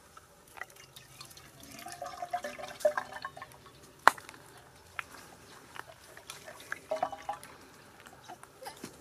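Water poured from a plastic cup into a bamboo tube, splashing and trickling in two spells, with one sharp click about four seconds in.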